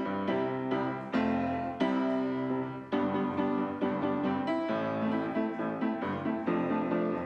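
Background music played on piano, a steady stream of notes with chords changing every second or so.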